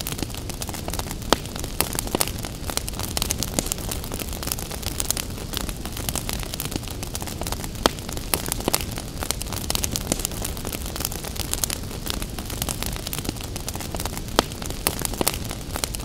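Wood fire crackling, with frequent irregular sharp pops and snaps over a steady low rumble and hiss.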